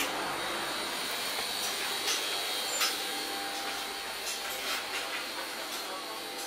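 Steady rushing hiss of a ship's ventilation and air-conditioning below deck, with a few light clicks and knocks, the loudest about two and three seconds in.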